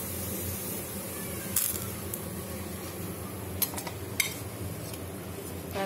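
Steel spatula scraping and clicking against a dosa tawa as a cooked adai dosa is lifted off and moved to a plate: a handful of short sharp clicks over a low steady hiss.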